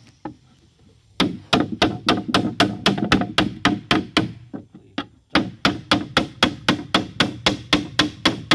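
Claw hammer striking a wooden board inside a wooden boat hull in quick, even blows, about five a second. A couple of lone strikes come first, and there is a short pause a little past halfway before the rapid hammering resumes.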